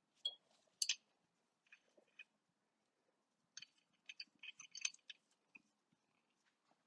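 Pipe wrench working the lip of a dented wheel rim: faint metallic clicks and short scrapes as the jaws grip and shift, two sharper clicks about a second in, then a quick cluster of clicks a few seconds later.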